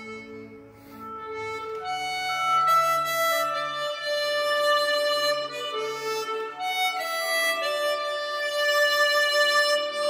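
Kongsheng Lyra chromatic harmonica fitted with a Kettlewell Slider mouthpiece, playing a slow melody of long held notes, with a brief lull about a second in.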